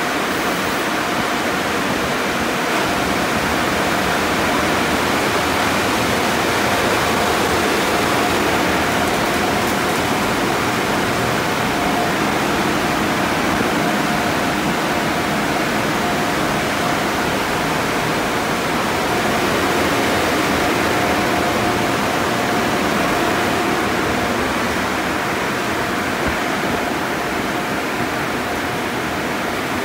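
Conveyor car wash tunnel in operation: a steady rush of water spray from the tunnel's nozzles and equipment, with a thin steady machine whine through most of it that weakens near the end.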